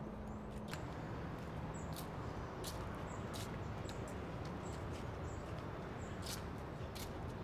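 Sandal footsteps on paving tiles, light sharp slaps at a walking pace, over a steady outdoor background hiss with a faint high chirp repeating about every 0.7 s.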